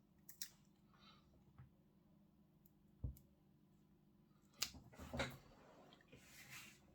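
Near silence with a few light clicks and small handling knocks on the workbench, a short cluster of them about two-thirds of the way in, followed by a soft hiss.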